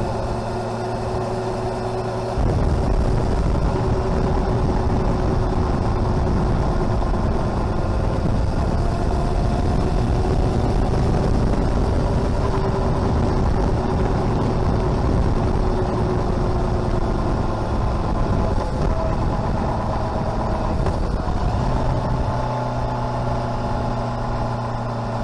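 A vehicle engine running, heard as a steady low hum. About two seconds in, a louder, even rushing noise comes in abruptly over it and lasts until a few seconds before the end, when the plain hum returns.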